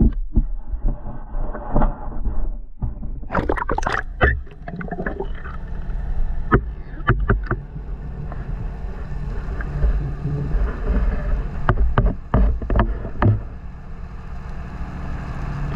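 Splashing and knocking as a camera is plunged into the sea, then muffled underwater sound: a steady low drone with scattered sharp clicks and knocks.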